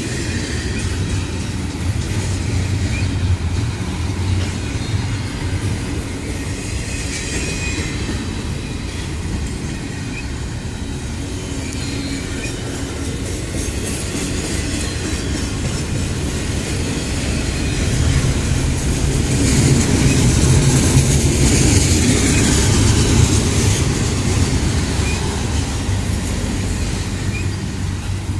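Norfolk Southern intermodal freight train's cars rolling past on the rails, a continuous rumble of wheels on track that swells louder about two-thirds of the way through.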